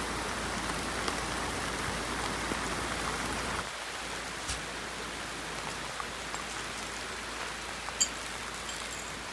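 Heavy rain falling steadily on a large camping tarp, with scattered sharp drop ticks; it drops a little in level about four seconds in.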